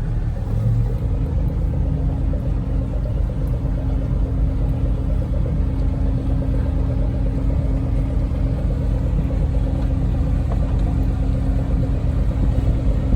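Regal 2665 express cruiser's engine running underway, a steady low rumble with a constant hum.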